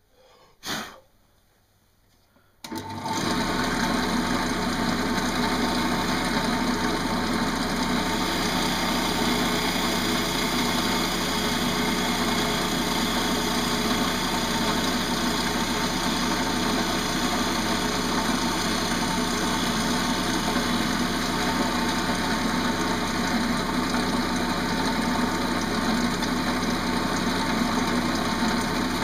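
Wood lathe running steadily while a bowl gouge cuts inside a green pear-wood bowl, shaving off curls of wood. The steady running noise comes in suddenly nearly three seconds in; before that it is near silent except for one short knock about a second in.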